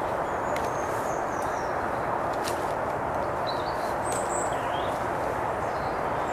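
Small birds chirping now and then, short high calls over a steady background hiss, with a few sharp clicks.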